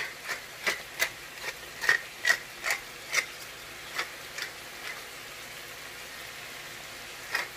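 Hand pepper mill grinding black pepper: a string of dry ratcheting clicks, two or three a second, that stops about halfway through, with one more click near the end.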